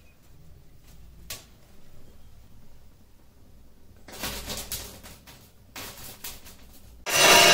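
Faint rustling and a single click. Near the end, loud metallic ringing starts suddenly, the temple's aarti bells and gongs beginning the mangal aarti.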